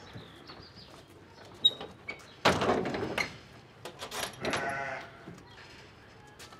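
Sheep bleating inside a Provan Classic livestock trailer, one long bleat a little after halfway. Metal clicks and knocks come from the trailer's rear door and partition being swung shut and latched, with the loudest sudden clatter a bit after two seconds in.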